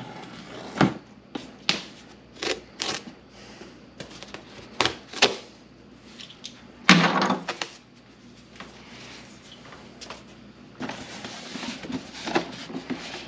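A string of short scraping strokes as EVA floor foam is cut with a utility knife along a metal straightedge, then a louder scrape about seven seconds in, and near the end soft rustling as the foam strip is pressed into the box against plastic pipe sections.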